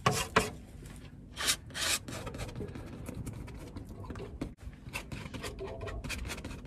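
Palette knife scraping paint on a palette and spreading it across a canvas in a series of rough strokes. The loudest strokes come right at the start and about a second and a half in.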